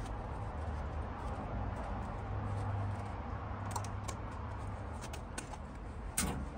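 Light metallic clicks and taps as a rusty jeweler's hand vise, still seized solid after electrolysis, is handled and worked with rubber-gloved hands, over a steady low hum. A sharper knock comes near the end.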